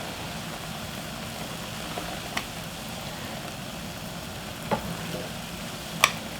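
Pot of sliced beef brisket in water boiling hard on the stove, a steady bubbling hiss, with three short clinks of a metal utensil against the pot, the loudest near the end.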